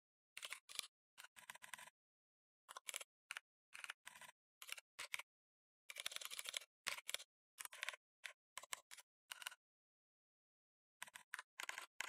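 Typing on a computer keyboard: quick, irregular runs of faint keystroke clicks, with a pause of about a second and a half near the end.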